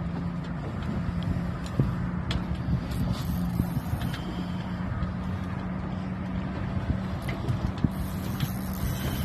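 A motor's steady low hum and rumble, with a few scattered light clicks and knocks over it.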